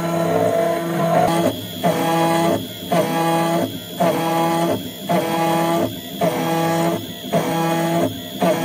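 Carbide 3D Nomad 883 desktop CNC mill, with its upgraded 78-watt spindle motor, milling 6061 aluminium with an end mill: a steady pitched cutting whine. From about a second and a half in, the whine breaks off briefly about once a second in a regular rhythm.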